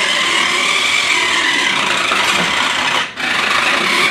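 Toy RC car's small electric motor whirring and its tyres scrubbing as it spins in circles, with a brief drop-out about three seconds in.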